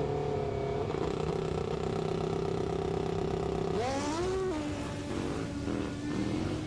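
Dirt drag-racing motorcycle engine holding a steady high idle on the start line. About four seconds in it revs up sharply as the bike launches, its pitch rising fast, then settling to a lower, fading note as it pulls away.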